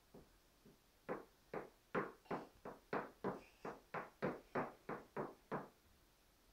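A quick run of about fourteen sharp knocks, roughly three a second, starting about a second in and stopping abruptly near the end.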